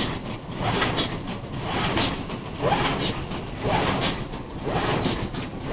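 Semi-automatic die-cutting and creasing machine for corrugated cardboard running in a steady cycle, about one stroke a second, each stroke bringing a short hiss over a mechanical clatter.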